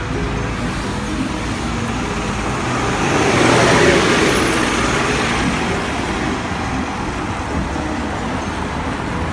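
Alexander Dennis Enviro500 MMC double-decker bus's diesel engine and tyres as it drives past at close range, swelling to a peak about four seconds in and then easing back into steady street traffic.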